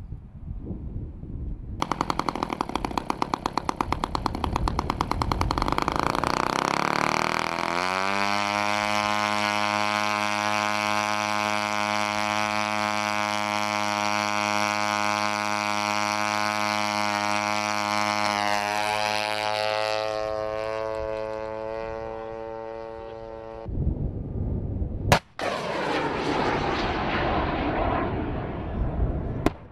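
The small piston engine of a propeller target drone starts about two seconds in, running rough with rapid firing, then revs up about eight seconds in to a steady high-pitched buzz at full throttle that holds for over ten seconds. Near the end a single sharp crack is followed by a rushing sound that fades away.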